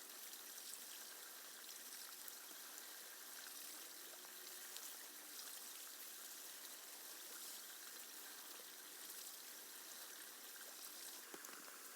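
Faint, steady rush of flowing water, like a small stream, with a few light clicks near the end.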